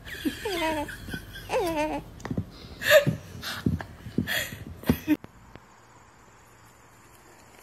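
Newborn baby laughing in its sleep: a few high, wavering coos followed by short breathy giggles. It cuts off abruptly about five seconds in, leaving only faint background noise.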